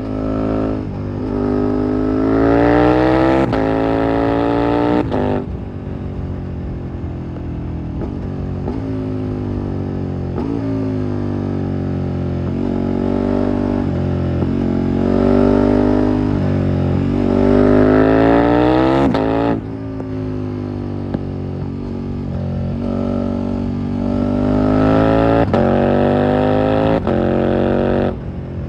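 2021 KTM 1290 Super Duke R's V-twin engine with an SC-Project exhaust, riding under load. The engine note climbs in pitch under hard acceleration three times, and each climb ends with a sudden drop as the throttle shuts. Between the climbs the note is steadier or falling.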